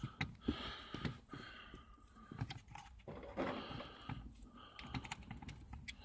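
Faint, irregular clicks and taps of hard plastic, with soft rustling between them, as the R50 Mini's plastic accelerator pedal assembly is handled and lined up into its mount.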